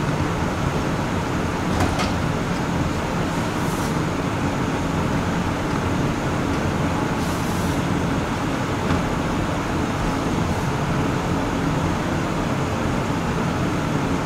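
Steady roar of commercial kitchen ventilation running, with a few brief faint high hisses about two, four and seven seconds in.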